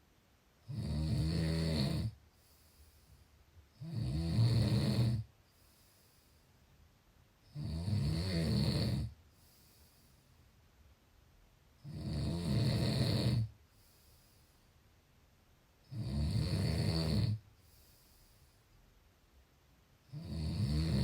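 A person snoring in sleep: six snores, each lasting about a second and a half, come about every four seconds with quiet breathing gaps between them.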